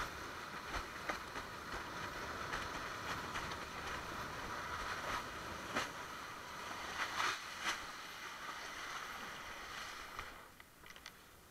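Water rushing past a windsurf board under sail, with a few sharp knocks. The rush falls away about ten seconds in.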